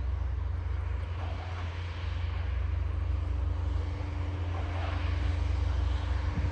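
A distant engine drones steadily as one faint, even hum, growing slightly louder. A heavy low rumble of wind buffeting the microphone runs underneath.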